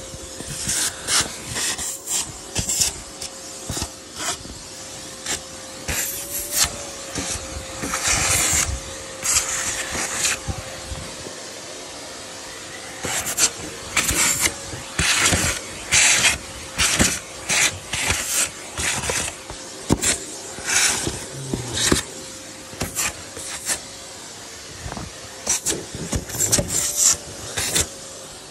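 Stiff PVC vinyl of a deflated above-ground pool rustling and crinkling in repeated irregular bursts as it is handled and spread out, over a faint steady tone.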